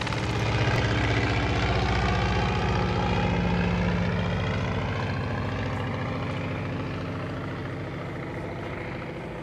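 Fokker Dr.I triplane's piston engine and propeller running in flight, steady, loudest about a second in and slowly fading over the last few seconds.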